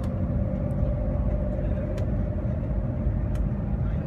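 Steady running noise inside the cabin of the Shanghai Maglev train in motion: a low rumble with a steady hum above it.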